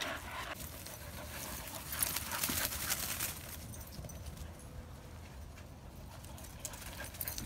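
Light footsteps rustling and tapping through dry fallen leaves and grass, a few irregular steps at a time, busiest in the first second and again from about two to three and a half seconds in.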